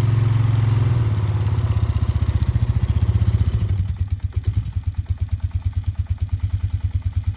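Polaris Magnum 500 ATV's single-cylinder four-stroke engine running, then dropping to a lumpy, pulsing idle about four seconds in.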